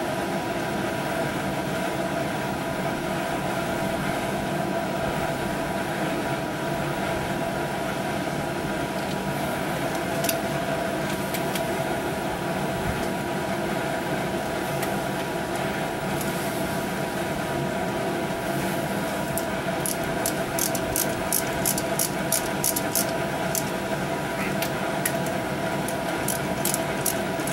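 Hand ratchet clicking in quick even runs of about four clicks a second, about two-thirds of the way in and again near the end, as it works a fastener on a small-block Chevy 350 short block. A steady machine hum with a few fixed tones runs underneath.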